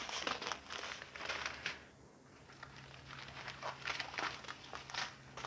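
Small plastic zip bags of diamond painting drills crinkling as they are handled, in a dense run of crackles, a short lull about two seconds in, then scattered crinkles again.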